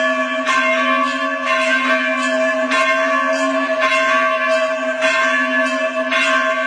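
Devotional soundtrack: a bell is struck again and again over a steady, held drone.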